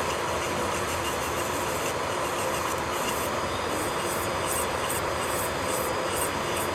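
Electric nail drill running against a fingernail, a steady whir with irregular high scratchy strokes as the bit grinds the nail surface.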